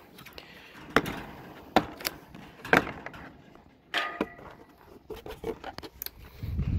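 Stanley plastic socket-set case being unlatched and opened: a series of sharp plastic clicks and knocks from the latches, then a clatter about four seconds in as the lid swings open and the metal sockets in the tray shift, and a dull thud near the end.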